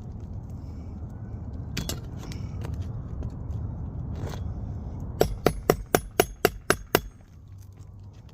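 Work on an asphalt shingle being pulled from a roof: a single sharp tap, then about five seconds in a quick run of about eight sharp clicks, roughly four a second, over a steady low rumble.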